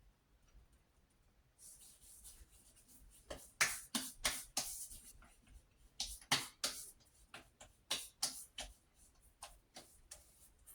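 Fingertips rubbing and patting a greasy balm into freshly shaved skin: a run of short, irregular strokes starting about two seconds in.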